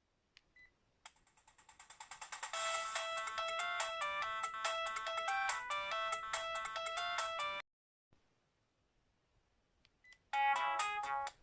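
Sharp GX10 flip phone playing one of its built-in ringtones: a brisk chiming melody that swells up over its first second or so, then plays at full volume and stops abruptly. After a short pause and a faint key click, a different ringtone starts near the end.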